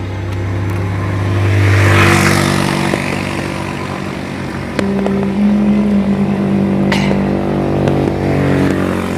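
A motor vehicle passes on the road, its engine and road noise building to a peak about two seconds in and then fading. Steady engine-like tones continue after it, stepping up in level a little before five seconds in.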